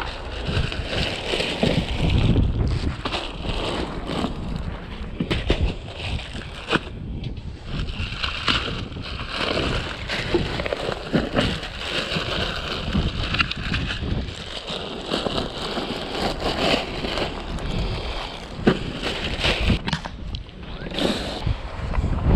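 Wind buffeting the microphone with a low rumble, over the crinkling and rustling of plastic bags and packaging being handled and pulled open.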